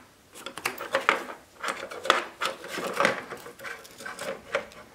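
Hands pulling parts out of a plastic mini fridge housing: irregular clicks, knocks and rubbing as a metal plate in a foam frame and its wires are worked loose from the plastic case.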